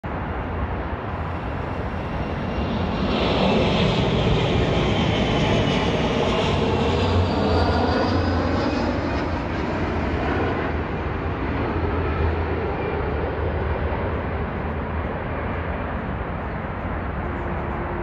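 Jet airliner passing low overhead: its engine noise swells for several seconds and then fades, with a thin whine that drops in pitch as the plane goes by.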